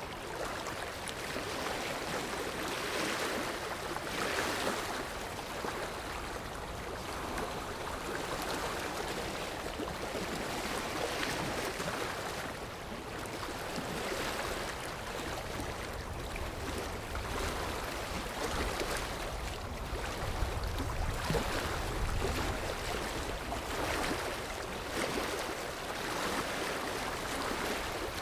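Sea waves washing in, a steady hiss of surf that swells and fades every few seconds, with a deeper rumble of surf partway through.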